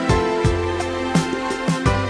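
Background music with a steady beat, guitar-like plucked notes over a bass line.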